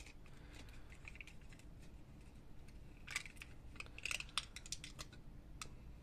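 A small plastic creamer portion cup with a foil lid being handled and opened: faint crinkling, scratching and scattered clicks, busiest about three to four and a half seconds in.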